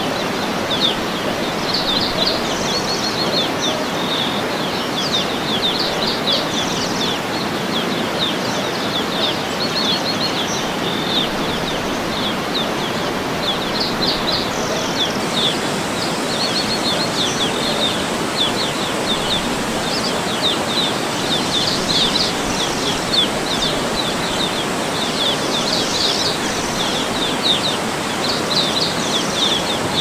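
Steady rush of falling water from a waterfall, with small birds chirping over it in short, quick clusters of high notes every second or two.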